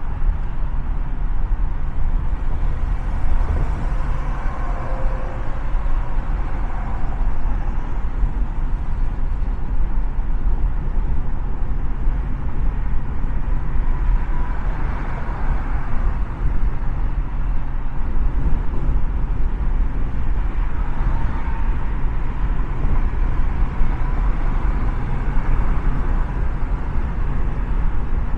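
Steady rumble of a car travelling at freeway speed: tyre, road and engine noise, deep and even throughout.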